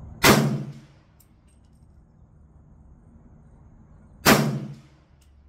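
Two rifle shots from an AR-style rifle in .300 Blackout firing 125 grain full metal jacket rounds, about four seconds apart. Each is a sharp crack with a short echo, followed by a few faint ticks.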